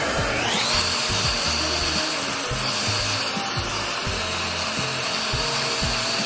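Hot-air blower running: its motor whine rises as it spins up about half a second in, then holds steady over a loud rush of air.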